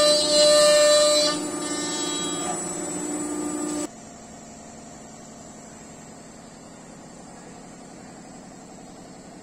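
SEMAC SM 1325 CNC router's spindle running with a steady high whine while routing a sheet panel. The whine drops in level after about a second and cuts off abruptly about four seconds in, leaving a much quieter steady hum.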